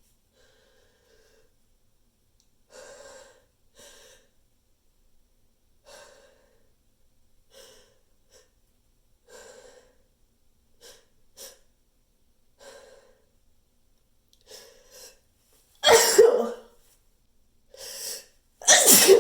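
A person's sneeze buildup: a string of short, quiet in-breaths and sniffs at irregular intervals, then two loud sneezes near the end, about three seconds apart.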